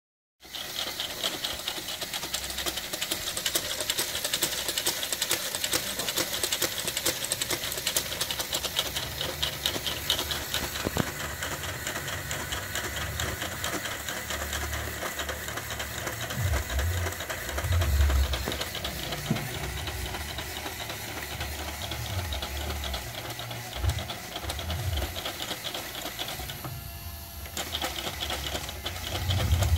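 Motor-driven Lego stair-climb coin spreader running: a fast, steady clatter of plastic Lego parts and gearing, like a sewing machine.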